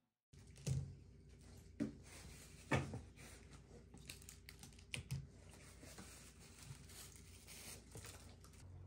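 Gloved hands handling stacks of die-cut stickers and photo cards on a table: a few sharp taps and clicks as cards are set down and squared, the loudest about three seconds in, with light rustling and ticking of card in between.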